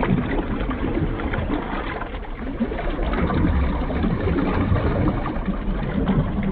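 Underwater ambience: a steady wash of moving water with a low rumble and small scattered clicks.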